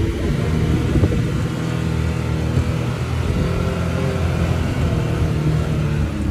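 Side-by-side UTV's engine running steadily as the machine drives over slickrock, heard from inside the open cab.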